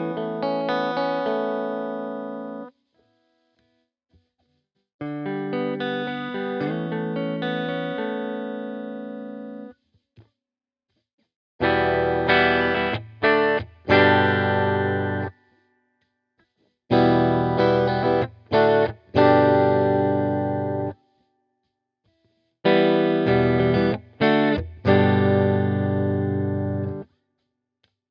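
Three-humbucker Epiphone Les Paul Black Beauty electric guitar played with a clean tone. It plays two ringing chord phrases, then three heavier phrases of choppy chords with brief stops, each phrase followed by a pause.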